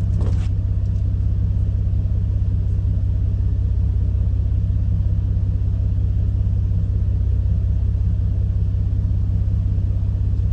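Nissan 370Z's 3.7-litre VQ V6 idling steadily with a low, even hum; the car has an exhaust leak.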